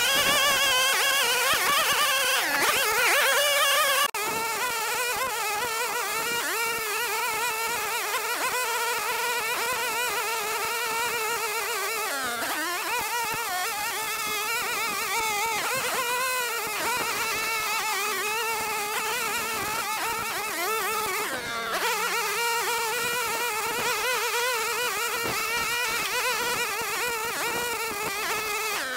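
String trimmer running at high speed while trimming grass along paver edges, its pitch wavering up and down as the throttle and load change. It is a little louder for the first four seconds.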